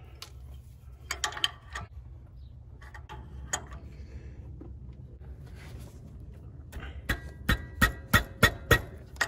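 Adjustable wrench clicking against the metal tube fitting under an EGR valve as the fitting is tightened. There are a few scattered clicks, then a quick run of about six metallic clicks near the end with a faint ring.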